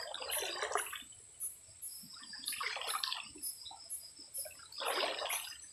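Water splashing and sloshing in shallow freshwater three times, about two seconds apart, over a steady high insect trill.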